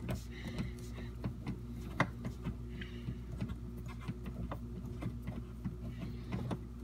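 Small irregular clicks and scrapes of a screwdriver backing out the Phillips screw that holds a dishwasher's water inlet valve, over a steady low hum.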